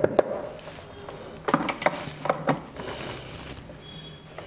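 Sharp clicks and light knocks of hand tools on a workbench while a chip is cleaned with a soldering iron: two at the start, then a quick cluster of several about one and a half to two and a half seconds in, over a faint steady hum.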